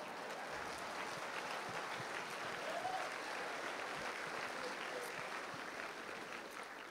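Audience applauding after a punchline, the clapping dying away near the end.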